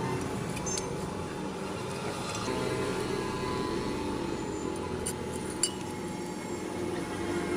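A few light metallic clinks over steady background noise.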